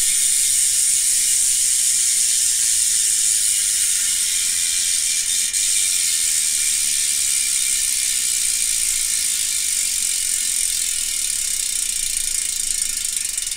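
Freehub of a Retrospec aero rear wheel ratcheting as the wheel is spun by hand while held by its axle: a loud, fast, continuous buzz of the pawls clicking, the hub sound the owner calls 'tunog mayaman' (a 'rich' sound).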